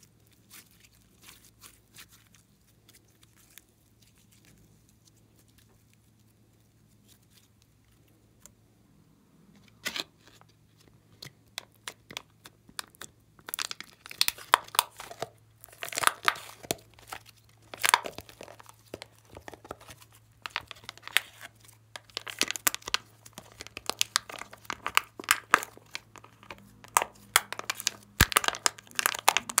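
Glossy slime being squeezed and kneaded by hand, making sticky crackling and popping clicks. It is faint for about the first ten seconds, then the crackling turns dense and loud.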